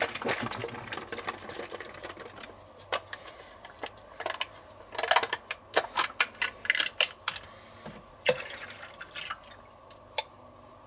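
Liquid poured into a stainless steel Thermomix mixing bowl, a trickling pour that fades out over the first couple of seconds. Then scattered light clicks and knocks.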